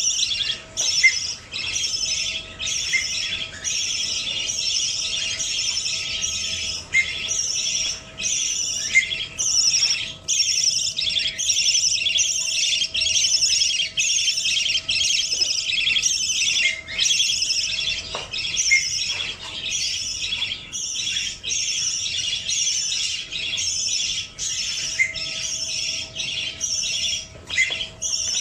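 Baby budgerigar making repeated begging calls, about two a second without a break, the food-begging of a chick being hand-fed.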